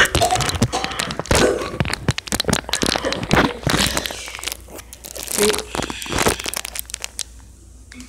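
Irregular crinkling and rustling with small knocks, busy for about the first six seconds and then quieter.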